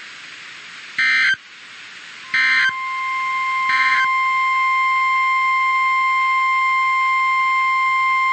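Emergency Alert System SAME header: three short, loud, buzzy digital data bursts about a second and a half apart. Under the second burst the steady single-pitch NOAA Weather Radio warning alarm tone (1050 Hz) comes in and then holds, marking the start of a new severe thunderstorm warning.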